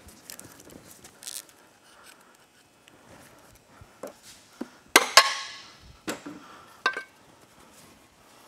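Hand tools and bolts clinking and knocking as the valve cover bolts come out with a Torx bit and the cover comes off the engine: scattered light clicks, then two sharp metal clinks that ring briefly about five seconds in, followed by a few smaller knocks.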